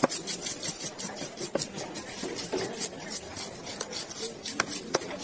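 Large knife working a barracuda (vellai ooli) on a wooden chopping block: a quick run of short rasping scraping strokes, several a second, broken by a few sharper knocks of the blade against the wood.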